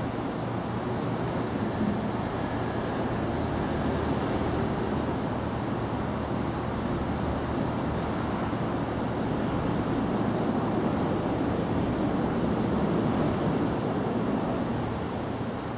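Steady low rumble of outdoor background noise that swells a little about ten seconds in and eases near the end, with one brief faint high chirp early on.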